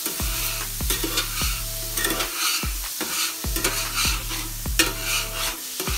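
Water sizzling and steaming on a hot steel flat-top griddle while a scraper is pushed across it, lifting stuck-on food as part of cleaning with the heat still on. Background music with a steady beat plays underneath.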